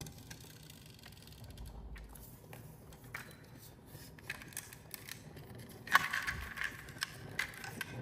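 Marbles clicking and rolling on a wooden HABA marble-run slope. There are scattered light clicks at first, then a sharp click about six seconds in, followed by a continuous rolling rattle with a faint ringing tone.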